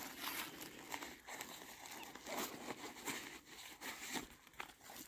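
Rustling and crinkling of a nylon plate carrier and dry leaves as hands work a soft armor panel out of the carrier, in irregular short bursts.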